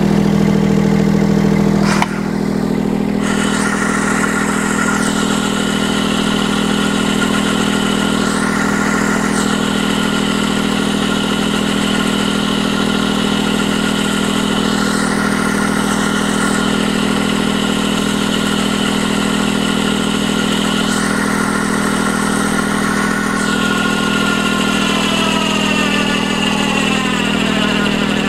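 Mini excavator engine running steadily while an electric winch mounted on it is tested, pulling its cable in against a branch under load. There is a click about two seconds in, and the whine falls in pitch near the end.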